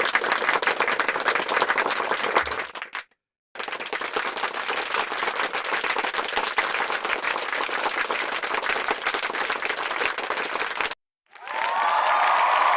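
Applause: a dense patter of many hands clapping in two separate bursts, each cut off by a moment of silence, the first about three seconds long and the second about seven. Near the end a crowd starts cheering.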